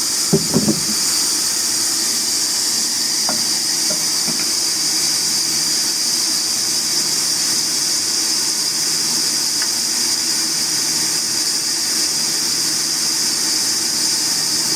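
Sawmill saw running steadily: a strong, even hiss over a low hum. A few brief louder sounds come about half a second in.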